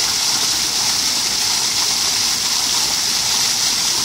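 Small waterfall pouring down a rock face into a shallow pool: a steady, loud rush of falling water.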